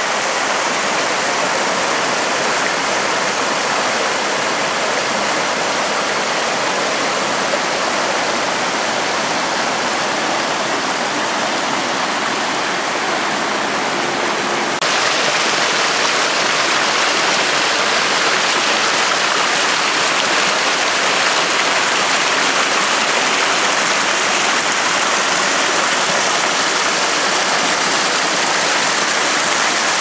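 Mountain stream rushing over rocks, a steady, even rush of water that steps up slightly louder and brighter about halfway through.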